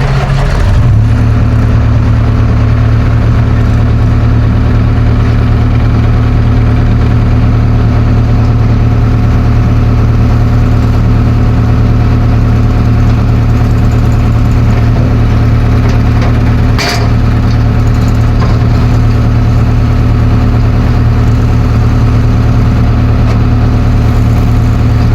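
Heavy-machinery diesel engine running steadily at a low, even speed, loud and close. A single short clank about seventeen seconds in.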